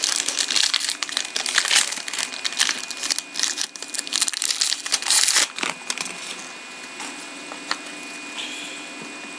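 A pack of hockey trading cards being opened by hand: its wrapper crinkling and rustling in quick, irregular bursts for about five seconds, then quieter, with a few small clicks.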